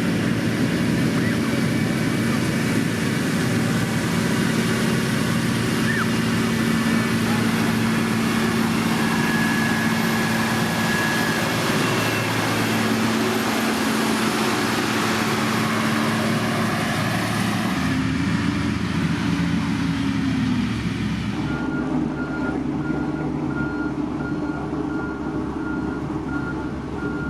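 Heavy road-building machine's engine running steadily under load. Near the end a reversing alarm starts beeping at an even rate over the engine.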